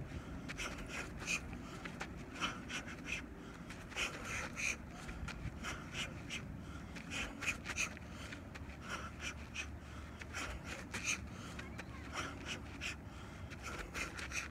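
A boxer's sharp, short exhales through the mouth, one puff with each punch while shadowboxing, coming in quick uneven clusters of several a second.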